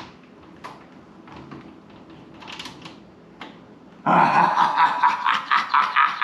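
A few small metallic clicks of a key working in the lock of a grandfather clock's case. From about four seconds in comes a loud, drawn-out, pitched sound, much louder than the clicks.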